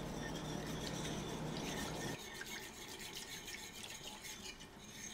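A whisk stirring and scraping through a milk-and-roux sauce in a pan.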